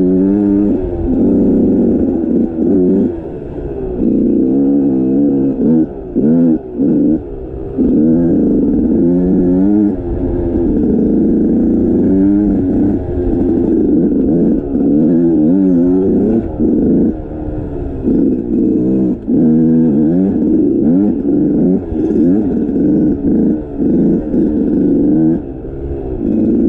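Motorcycle engine revving up and falling back again and again as the throttle is worked, with short drops in between.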